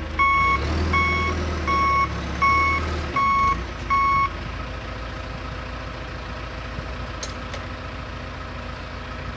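John Deere 410G backhoe loader's backup alarm beeping at an even pace, about three beeps every two seconds, over its running diesel engine. The beeps stop about four seconds in and the engine keeps running steadily.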